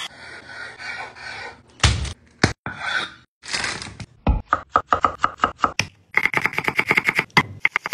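A knife chopping food on a cutting board in quick, even strokes, turning into a faster run about six seconds in. Before that come a few seconds of scraping and rubbing with a couple of knocks.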